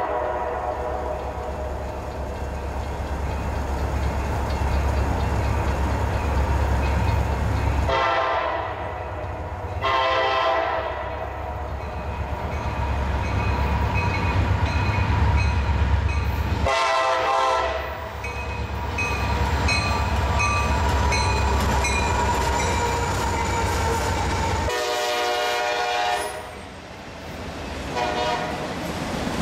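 Diesel freight locomotive's air horn sounding a series of blasts over the low rumble of the train as it approaches and passes. Near the end the autorack freight cars roll by.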